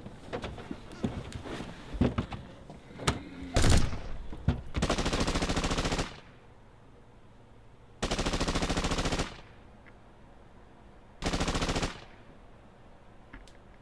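Scattered knocks and a loud thump, then three bursts of rapid automatic gunfire, each lasting about one to one and a half seconds.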